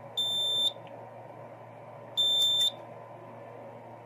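EST3X fire alarm control panel's trouble sounder beeping twice, about two seconds apart, each a high steady beep about half a second long. It signals a battery trouble: one of the panel's backup batteries has been disconnected.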